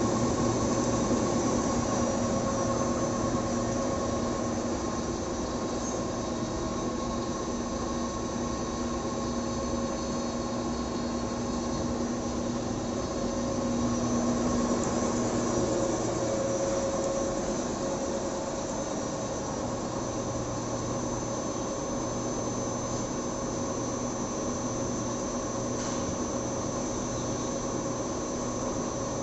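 620 mm paper slitting and rewinding machine running steadily: a continuous mechanical drone with several steady tones from its motor and rollers as the paper web is slit and wound onto rolls.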